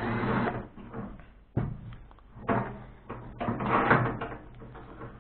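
Knocking and clattering of loose microwave oven parts being handled and moved about, with sharp knocks about one and a half and two and a half seconds in.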